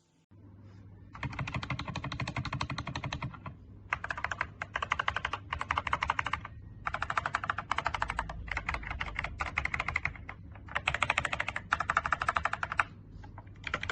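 Fast typing on a mechanical keyboard fitted with XDA-profile PBT keycaps: runs of rapid key clicks lasting a second or two, broken by short pauses.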